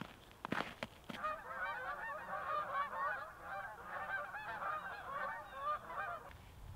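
A large flock of geese flying over, many overlapping honking calls at once. The calls start about a second in and stop shortly before the end. Before them come a few footsteps on snow.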